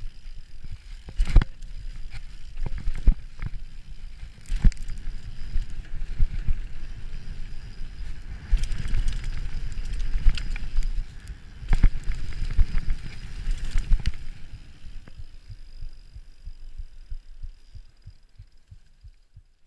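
Mountain bike riding fast down a rough dirt singletrack, heard from on the bike: a continuous low rumble and rattle of tyres, chain and frame over the ground, broken by several sharp knocks from hard hits on the trail. The rattle thins out and grows quieter over the last few seconds.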